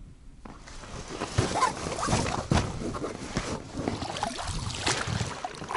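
Small hunting boat being rowed or paddled through water: a run of splashes, with knocks of the oar against the boat, starting about half a second in.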